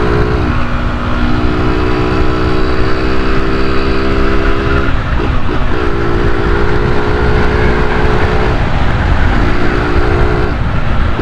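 Honda CG 125 Cargo's single-cylinder engine running under way at a steady pitch, with strong wind rush on the helmet microphone. The air-filter intake hose is removed, which gives the engine a growl. The steady engine note breaks off briefly about five seconds in and twice more near the end.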